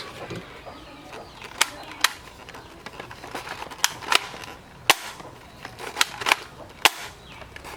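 Toy foam-dart blasters firing: about eight sharp shots at irregular intervals, some coming in quick pairs.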